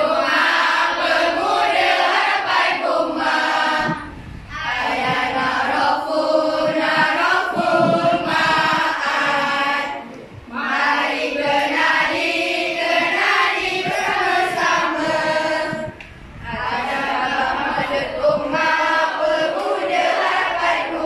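A classroom of schoolchildren singing together in unison, in phrases of about six seconds with short breaks between them.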